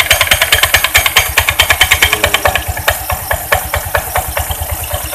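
Honda Vario 125 scooter engine idling with its CVT cover off and the throttle released, while the CVT gives a fast, even tak-tak-tak clatter of about ten knocks a second. The clatter comes only at low revs, and the mechanic traces it to the worn, loose rubber slider pieces on the roller ramp plate.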